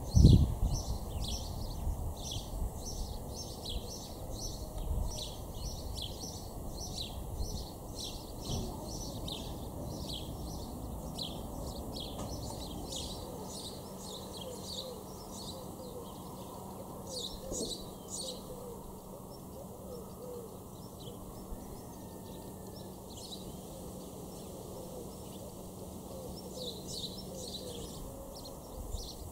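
Small birds chirping over and over in short, high calls, busiest in the first two-thirds and again near the end. A gust of wind buffets the microphone at the very start.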